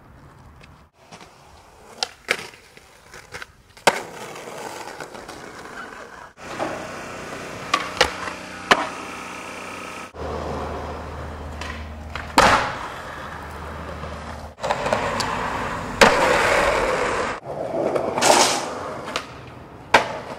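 Skateboard wheels rolling on concrete and asphalt, broken by sharp clacks of the tail popping and the board landing. The sound cuts off and changes abruptly several times, in short segments.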